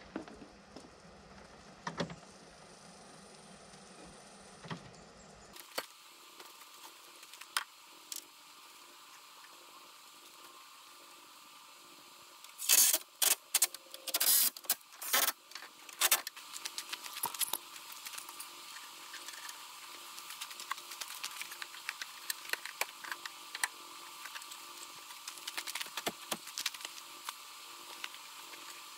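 A cordless power tool run in several short bursts a little under halfway through, driving in the mounting bolts of a pickup's front bumper. Before and after come light knocks and clicks of the bumper and bolts being handled.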